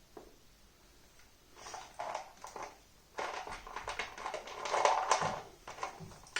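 Rustling and handling noise with quick clicks and taps, in two spells, the second longer: small objects being moved about and set down.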